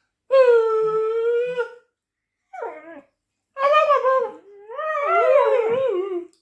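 A person and a lurcher howling together: a long, steady howl, a short falling one, then wavering howls in which two voices overlap and slide up and down in pitch.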